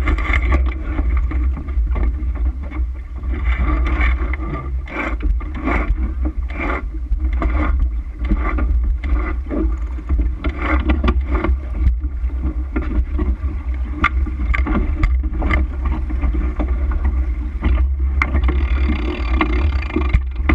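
Wind buffeting the microphone of a camera on the deck of a heeled sailboat under way, with water rushing along the hull. Scattered sharp clicks and knocks from the deck gear come through it.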